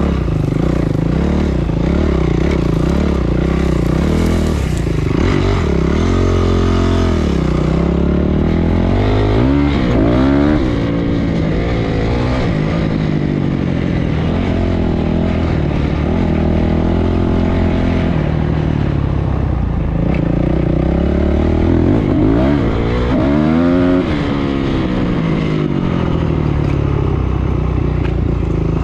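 A Honda CRF dirt bike's single-cylinder four-stroke engine running hard under the rider. Its pitch rises and falls over and over as he opens and closes the throttle and shifts gear, with several quick revs.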